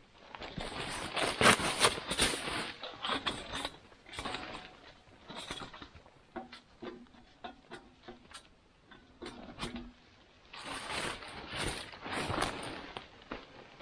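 Irregular rustling and scraping handling noises, coming in bursts with short pauses.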